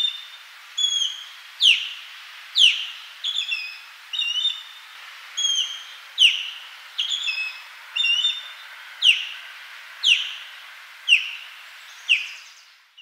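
Osprey calling: a series of short, sharp whistled notes, roughly one a second. Many slide steeply down in pitch, and some come as quick doubled chirps.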